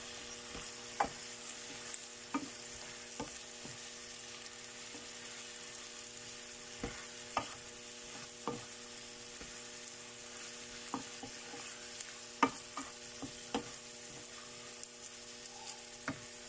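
Chicken and broccoli sizzling in a frying pan while being stirred, with irregular clicks of the utensil knocking against the pan.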